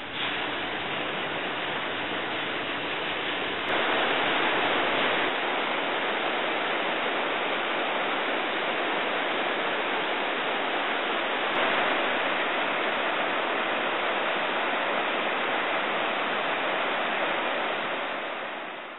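River water rushing, a steady hiss-like noise with no break. It steps up suddenly about 4 seconds in and shifts again around 12 seconds.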